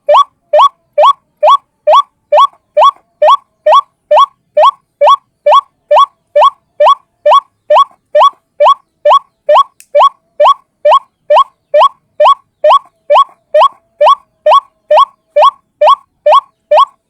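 White-breasted waterhen (ruak-ruak) lure call: one short rising note repeated evenly, about two and a half times a second.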